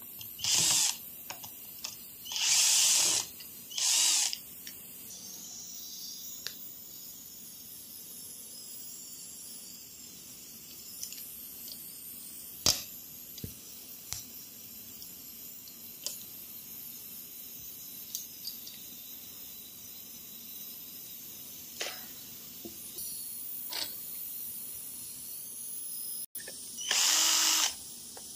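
Cordless drill with a hex bit running in short bursts as it drives and backs out the screws of an electric scooter's stem clamp: three bursts in the first four seconds and another near the end. In the long gap between, only scattered light metallic clicks from hand tools on the screws.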